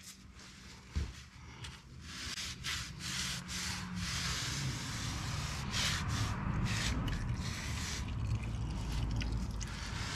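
Warm engine oil trickling from the drain hole into a plastic bucket of oil, a hiss that swells about two seconds in and carries on, with rubbing and handling noises from gloved hands at the bucket.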